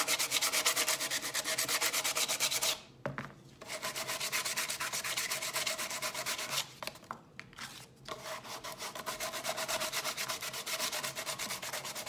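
Sandpaper rubbed by hand over a white-painted wooden birdhouse: quick back-and-forth scratching strokes, several a second, with two short pauses. The wood is being smoothed ready for transfers.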